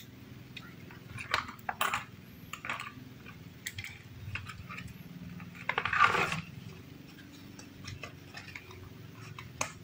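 Scattered light metal clinks and taps of a nut, bolt and tools being handled as an LED headlight bracket is fitted to a bicycle's front mudguard mount, with a longer, louder scrape about six seconds in.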